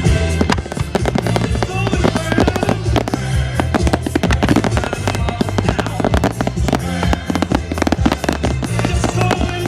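Fireworks bursting in a rapid, dense run of bangs and crackles over loud music with a steady low beat.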